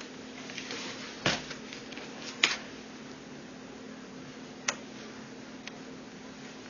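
Four sharp clicks and taps of a screwdriver and small screws against a laptop's screen hinges and plastic bezel while the replacement screen is fitted, the loudest about halfway through. A steady low hum runs underneath.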